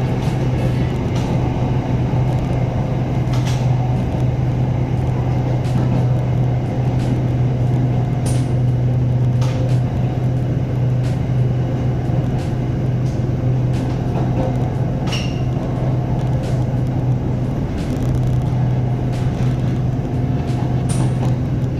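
SRT Red Line electric commuter train running between stations: a steady low hum with rumble from inside the carriage, and a few short ticks here and there.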